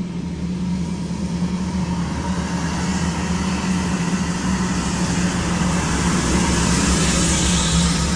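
Heavy truck approaching and passing close by, its engine running with a steady low hum. The road noise grows louder as it nears, loudest near the end.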